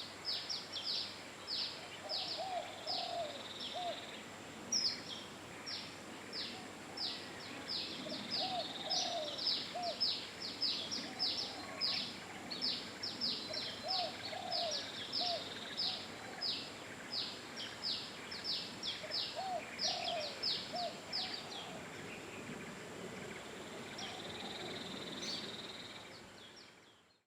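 Birds calling: a rapid run of sharp, high, down-slurred notes, several a second, with small groups of lower short calls every few seconds. Everything fades out near the end.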